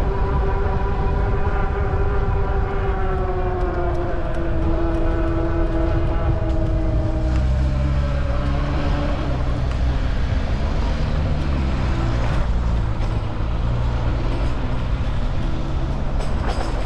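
Wind buffeting the microphone of a moving e-bike, a steady low rumble. Over it a humming tone slowly falls in pitch through the first seven seconds, then gives way to a lower, wavering hum.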